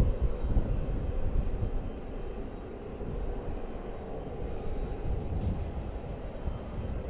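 Airport apron noise: a low, steady rumble of aircraft engines that swells and fades a little, loudest about a second in.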